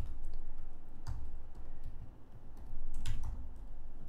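Typing on a computer keyboard: a few keystrokes in short, irregular groups.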